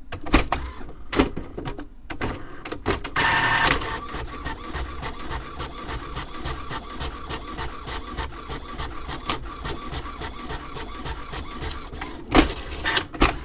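HP Deskjet 3740 inkjet printer working. A few sharp clicks open it, followed by a loud, short whir. Then comes a long, steady stretch of rapid, even mechanical ticking with a faint constant tone, and two loud clunks near the end before it stops.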